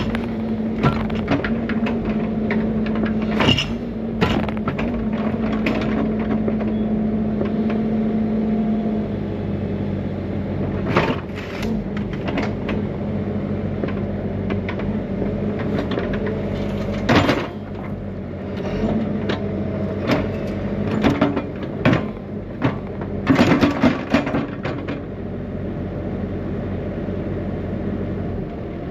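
Bobcat E55 mini excavator's diesel engine running steadily as it works, its note dropping about nine seconds in, with scattered sharp metallic clanks and knocks, several close together near the end.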